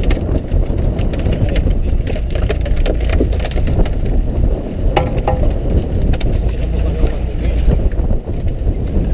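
Fishing boat's engine running with wind on the microphone, and irregular knocks and clatter on deck throughout.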